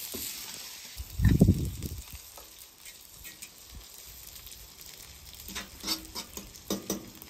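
Beaten eggs sizzling as they are poured onto a hot flat-top griddle, with a fork clicking and scraping against the bowl and griddle several times near the end. A dull low thump about a second in is the loudest sound.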